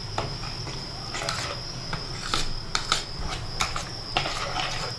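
A metal spoon stirring semolina soaked in milk in a bowl, with irregular clinks and scrapes against the bowl. A steady high-pitched tone runs underneath.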